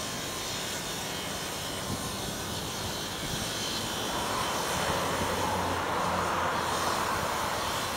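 A steady, distant engine rumble that swells slightly in the second half.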